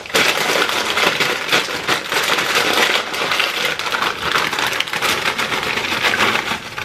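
A foil snack-chip bag crinkling as it is torn open and handled, and Takis rolled tortilla chips clattering as they are poured out onto a metal baking tray, a dense crackle of many small clicks.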